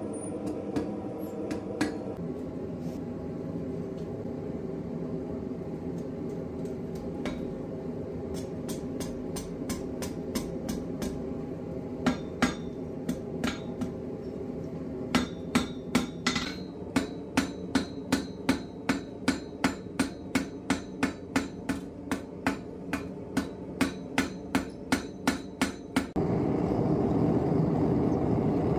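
Blacksmith's hammer striking steel on an anvil: a few scattered blows, then a steady run of about two ringing blows a second, over a steady hum. The hammering stops about 26 seconds in, and a louder steady rushing noise takes over.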